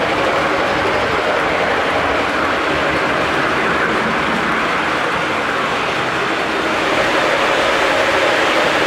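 Lionel American Flyer S gauge Blue Comet train, a 4-6-2 Pacific model locomotive pulling heavyweight passenger cars, running steadily around the layout: a continuous rolling noise of motor and wheels on the two-rail track.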